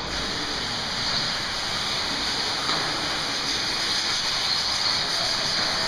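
Several 1/10-scale 4x4 RC buggies running laps on a dirt track, giving a steady high-pitched whirring hiss of motors, drivetrains and tyres that swells a little in the middle.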